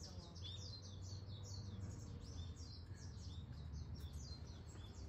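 Small birds chirping, a rapid run of short high chirps each sliding downward, several a second, over a faint steady low hum.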